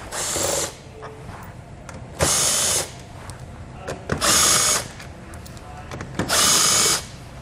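Milwaukee M18 cordless impact driver with a 10 mm socket, run in four short bursts about two seconds apart, each under a second long, as it spins out four bolts one after another.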